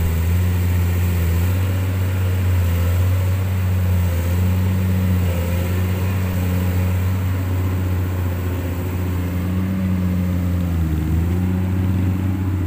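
The diesel engines of two 20-ton hydraulic excavators, a Komatsu 200 and a Kobelco 200, running steadily with a low hum. The pitch dips briefly near the end.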